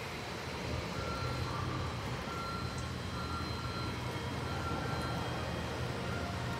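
Electronic warning beeps: a high tone sounding in short, repeated pulses over a steady low hum.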